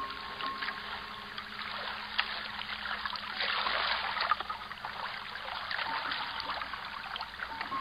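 Creek water trickling and splashing, with many small droplet ticks, swelling louder for a second or so about halfway through.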